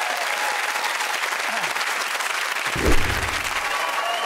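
Studio audience applauding steadily, with a single dull thump about three seconds in.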